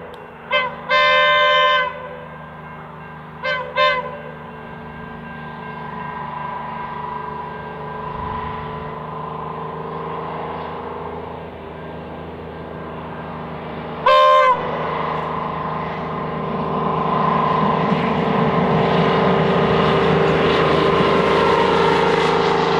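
Victorian Railways diesel-electric rail motor 58RM (a 'doodlebug' powered by a GM 6-71 diesel) sounding its horn. There is a short blast and a long one, then two quick short toots, and about fourteen seconds in a single short toot. Under the horn the rail motor's diesel engine drones steadily and grows louder over the last several seconds as it comes nearer.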